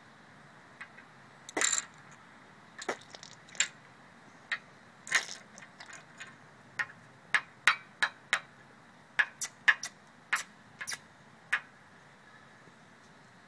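Plastic toy minifigures being handled and set down on a hard, smooth tabletop: irregular sharp clicks and taps, with two slightly longer clattery ones near two seconds and five seconds in.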